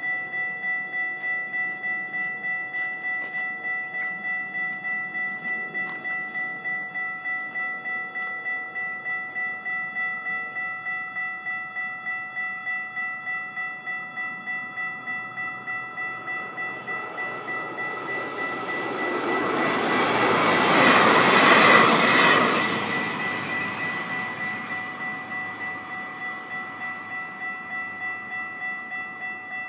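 Siemens high-tone electronic crossing bells ringing steadily, about two strikes a second. An RTD N Line commuter train passes through the crossing, its noise building to a peak about twenty seconds in and then fading.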